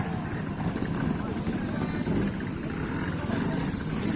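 Trials motorcycle engine running at low revs, mixed with spectators' voices in the background.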